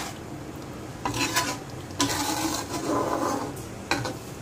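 A ladle stirring a pan of simmering curry, scraping against the pan in a few strokes about a second apart.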